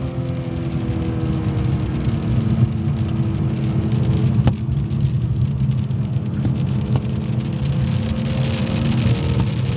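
Car engine running at a moderate, steady pace on a wet track, heard from inside the cabin under steady road and tyre noise; the engine note eases down and then climbs again near the end. A single sharp tick comes about four and a half seconds in, and tyre hiss off the wet surface swells near the end.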